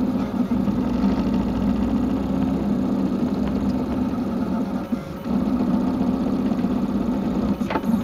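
3D printer running as it prints, a steady motor hum with a short break about five seconds in and a sharp click near the end.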